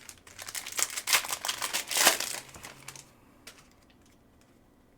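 Plastic wrapper of a Panini Select football card pack crinkling as it is torn open and handled, a dense run of crackles that stops about three seconds in.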